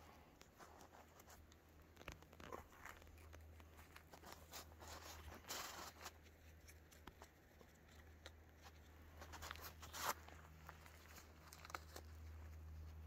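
Near silence with faint scattered rustles and clicks, loudest about six and ten seconds in: handling noise of a hand-held phone.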